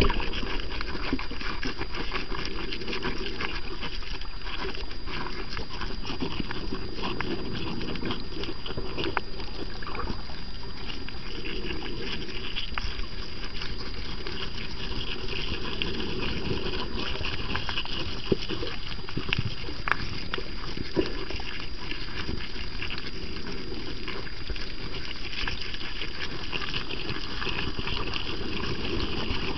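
Underwater reef sound: a dense, steady crackle of small clicks and scrapes among a large school of parrotfish grazing on the coral, with a few sharper clicks and a thin steady high tone.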